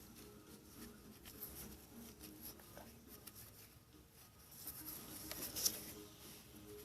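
Faint scattered clicks and light scraping of hands and tools working on the engine, with a louder sharp scrape or click about two-thirds of the way through.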